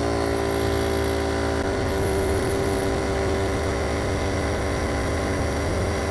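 Superflow dual-cylinder 12-volt air compressor running steadily under load, inflating a 33-inch tire from flat. Its tone shifts slightly about a second and a half in, and a low steady drone runs underneath.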